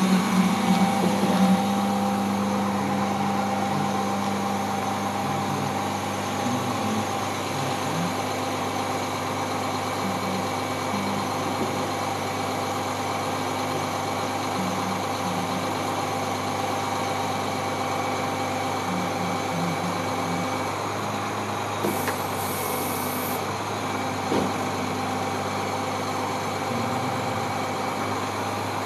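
2003 International 4400 bucket truck's engine running steadily at idle, driving the hydraulic pump as the aerial boom is raised and extended: a steady hum with a fainter whine. A brief hiss comes in late on.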